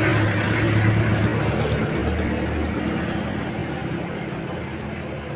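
A motor vehicle's engine running close by, a steady low hum that drops in pitch about two seconds in and slowly fades.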